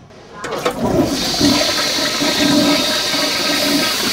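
A toilet flushing: a brief click, then from about a second in a loud, steady rush of water.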